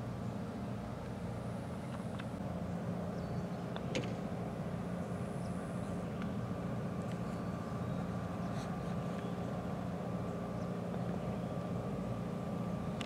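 A steady low engine drone runs throughout, with one sharp click about four seconds in, from a putter striking a golf ball.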